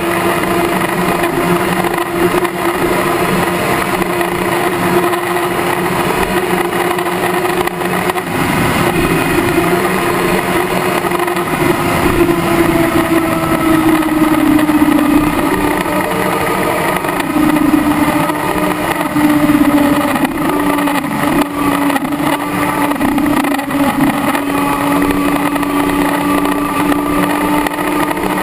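Kawasaki ZX-10R inline-four engine running at high revs in sixth gear at around 250 km/h, with wind rushing past; the engine note dips a little lower about halfway through as the speed eases off.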